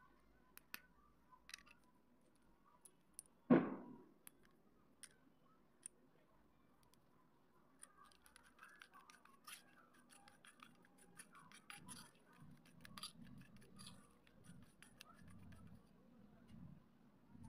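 Slate pencils snapped by hand, with the pieces clicking and clattering into a terracotta dish: sparse light clicks and one louder knock about three and a half seconds in. In the second half comes a denser run of small clicks with soft wet sounds as the pieces settle into clay slurry.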